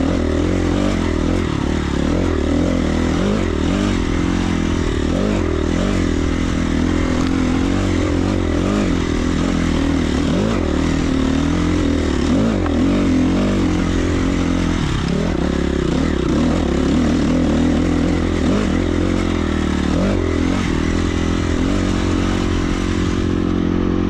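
Dirt bike engine running while riding a trail, its pitch rising and falling again and again as the throttle opens and closes.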